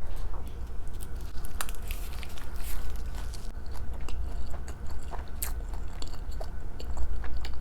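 Close-miked chewing: many small wet clicks and smacks of a mouth eating soft food, over a steady low hum.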